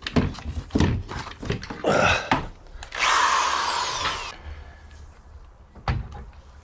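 Cordless drill running for about a second, its whine falling in pitch as it drives a screw into a wooden 2x4, after a few knocks from handling the board. One more knock comes near the end.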